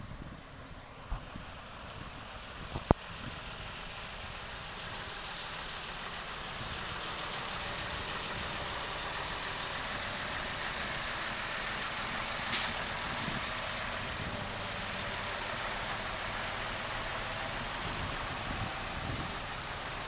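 Trucks passing close by on the street: engine and tyre noise building from about six seconds in and holding steady, with a short hiss about twelve seconds in. A single sharp click sounds about three seconds in.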